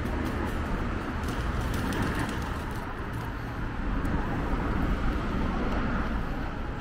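Steady city background noise: a low rumble with a hiss above it and faint light clicks.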